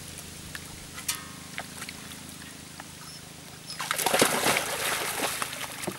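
A dog jumping off a log into shallow water and splashing through it, a loud stretch of splashing about four seconds in that lasts about two seconds.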